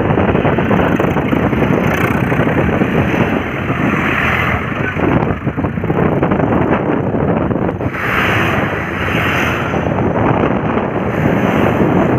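Farm tractors' diesel engines running as the tractors drive past one after another, with heavy wind noise on the microphone.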